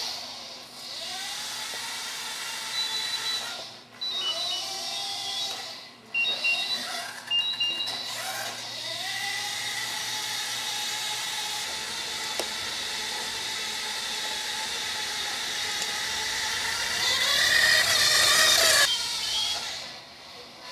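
Small robot rover's electric drive motors whining as it drives, the pitch rising and falling as it speeds up, turns and slows. A few short high beeps in the first several seconds, and the motor noise grows louder and harsher about 17 seconds in before cutting off shortly before the end.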